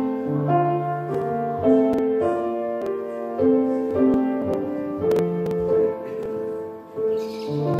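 Slow piano music: a steady run of held chords, each note sounding for about half a second to a second.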